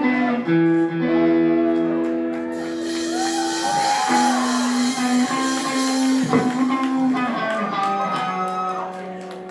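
Live rock band playing: electric guitars hold long, ringing notes over bass and keyboard. A cymbal wash comes in about three seconds in.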